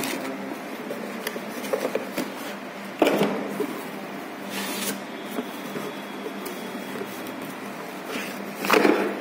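Hands handling a cardboard box and its packing: a sharp knock about three seconds in, a brief scraping rustle soon after, and more rustling near the end, over a faint steady low hum.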